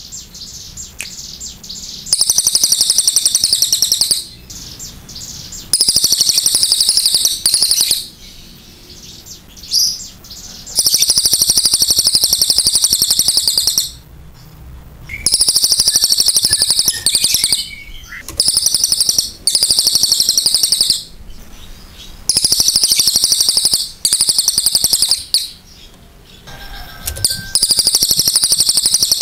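Crested jay (cililin) giving repeated long bursts of a high, very fast rattling trill, each burst one to three seconds long, with short pauses between them.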